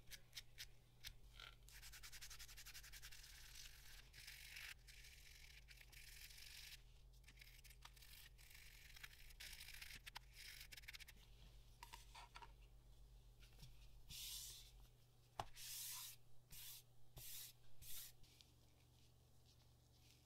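Faint rustling and rubbing of thin plastic film being peeled off and handled against a small resin heart badge, with a run of short, louder crinkles late on.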